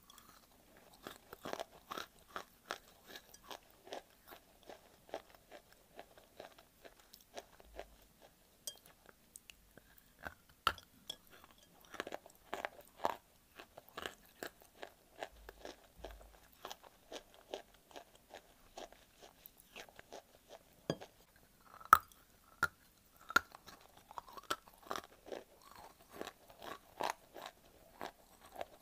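Biting and chewing a chunk of dry white clay: a steady run of crisp dry crunches, two or three a second, with one sharp loud snap about three-quarters of the way through.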